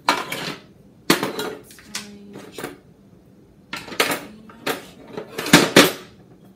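Kitchen utensils clattering against each other and the wooden drawer as they are rummaged through and lifted out: a string of sharp knocks and rattles, with a short lull in the middle and the loudest clatter near the end.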